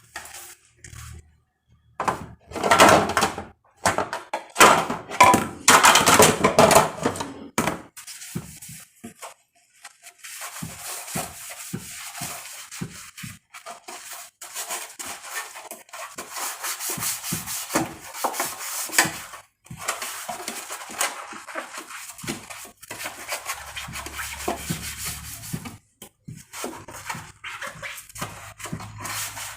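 Kitchen items being handled during fridge cleaning: rubbing, small knocks and clatter, with louder rustling or scrubbing about two to eight seconds in.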